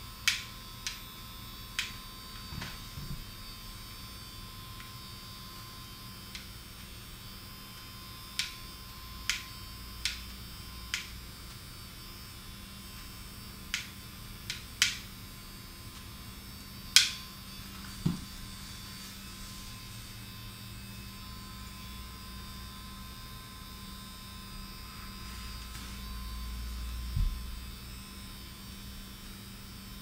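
A steady electrical hum, with sharp clicks every second or so through the first half. The loudest click falls a little past the middle. Near the end a low rumble swells and ends in a single thump.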